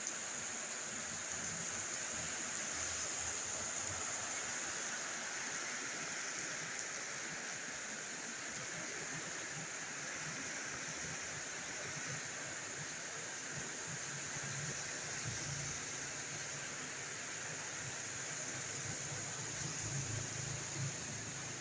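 Heavy rain pouring down steadily, an even hiss, with a low rumble joining in about two-thirds of the way through.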